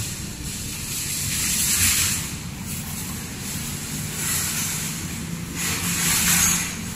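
A metal shopping trolley rattling as it rolls over concrete, then plastic grocery bags rustling as they are lifted into a car boot, in several swells over a low steady hum.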